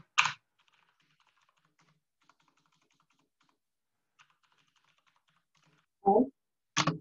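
Computer keyboard typing, a faint, irregular patter of key clicks for about five seconds. A voice is heard briefly at the start and again about six seconds in.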